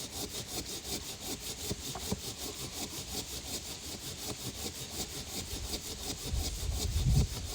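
Silky Sugoi pull-stroke pruning handsaw cutting through a thick log in quick, even rasping strokes, several a second. A louder low rumble comes in near the end.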